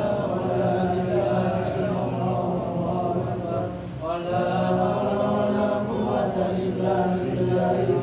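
A boy's voice chanting Quran recitation into a handheld microphone, in long melodic held phrases, with a short break for breath about four seconds in.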